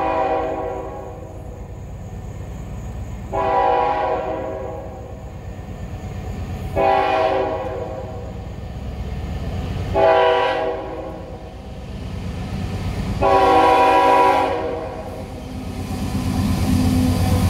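A CSX diesel locomotive's air horn blows a chord in five blasts about three seconds apart, the fourth short: the long-long-short-long grade-crossing warning as the train approaches. The low rumble of the locomotive grows louder near the end as it closes in.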